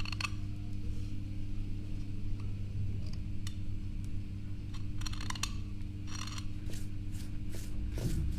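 A small knife scraping and cutting at the edge of a ceramic workpiece in several short scrapes, a second or two apart, over a steady low hum.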